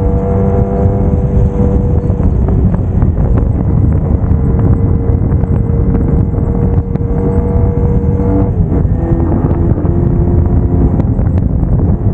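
Braaap Moto4 sportsbike engine running at a steady cruise, heard with heavy low wind rush from riding at speed; its note drops in pitch about eight and a half seconds in.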